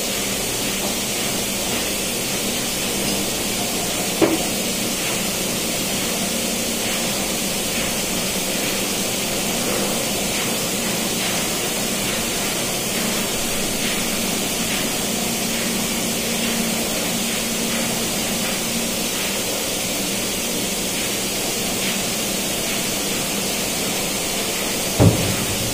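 Steady machinery noise of a ship's engine room, an even hiss with a low hum underneath. There is a sharp knock about four seconds in and a louder one near the end.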